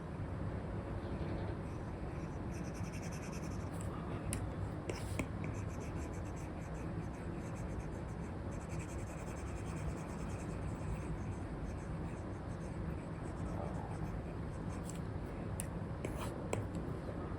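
Apple Pencil 2 with an Elecom nib scratching across a paper-like screen protector on an iPad in short drawing strokes, with a few sharp taps of the nib, over a steady low rumble.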